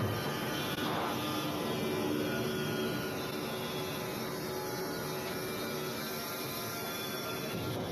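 Bandsaw sawmill running: a steady mechanical drone with several steady tones, a short falling whine about a second in and a higher pitch gliding slowly down a little later.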